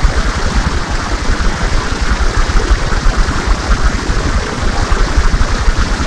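Fountain water pouring and splashing into a pool, a steady rushing noise with a heavy low rumble, put through an audio effects chain ('G major' edit) that distorts it.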